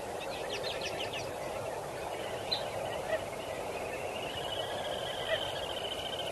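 Birds calling over steady background noise: a quick run of about eight chirps near the start, a few short sharp calls, then a long wavering trill from about four seconds in.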